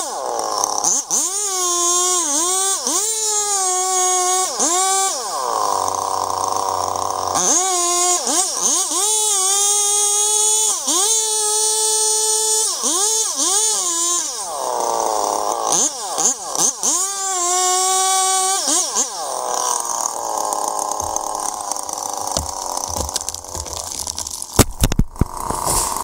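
Chainsaw running at high revs, cutting into a large tree trunk, its pitch dipping and recovering again and again. A few sharp clicks come near the end.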